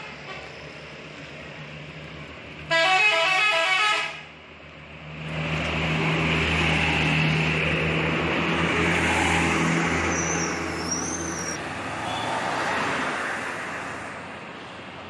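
Bus telolet horn playing its quick multi-note warbling tune for about a second. A loud bus then goes by for several seconds with a steady low hum, swelling and fading away near the end.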